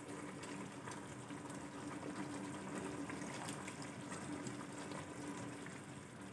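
Chicken and vegetable sauce simmering in a non-stick pan, bubbling faintly as a silicone spatula stirs through it while cornflour slurry is stirred in to thicken it. A faint steady hum runs underneath.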